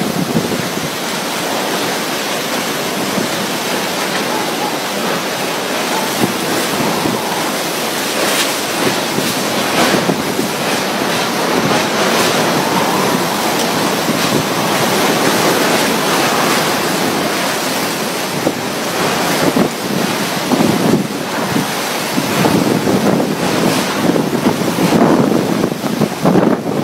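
Strong storm wind blowing in gusts and buffeting the microphone, with heavier buffeting in the last few seconds.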